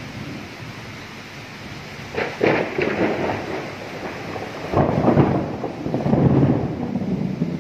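Thunder over steady rain: a sharp crackling clap about two seconds in, then a louder peal about five seconds in that rolls on as a low rumble for a couple of seconds.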